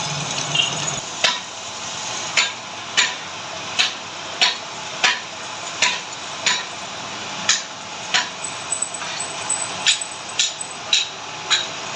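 Hammer striking metal in a steady series of about fifteen blows, one every half second to a second, each with a brief metallic ring.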